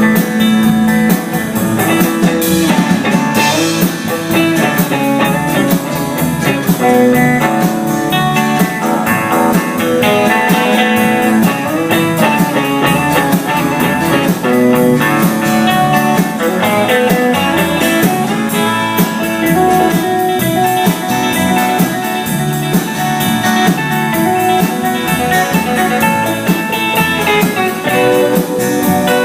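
Live band playing an instrumental break in a blues-tinged song, a guitar carrying the melody over bass and drums.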